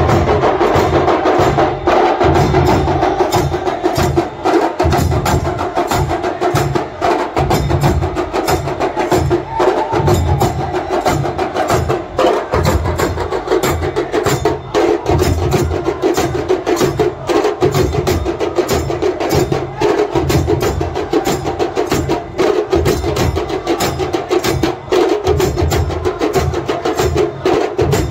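Goan romta mel percussion band playing: a fast, dense rhythm of sharp drum and cymbal strikes over repeated deep drum beats.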